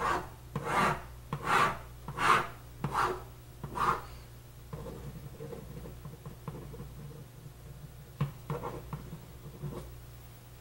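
A pen scratching on paper: six long strokes about two-thirds of a second apart as the lines of a table are drawn, then quieter scratching of handwriting, with a few sharper strokes near the end. A steady low hum sits underneath.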